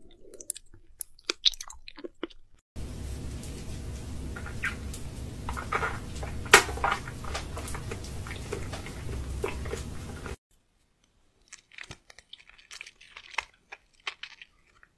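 Mouth sounds of people chewing and crunching food: irregular smacks and crunches, with one loud crunch about six and a half seconds in. A steady low hum runs under the chewing through the middle stretch, then stops.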